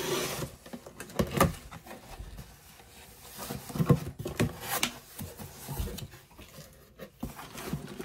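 A package being opened and handled by hand: rustling and scraping of the packaging, with several knocks and clicks as the contents are moved and set down.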